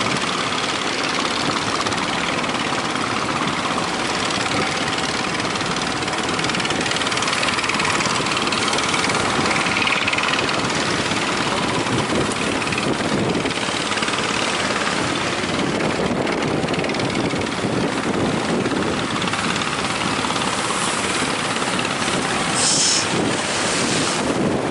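Strong wind blowing on the microphone over surf, with the outboard engines of small fishing boats running underneath.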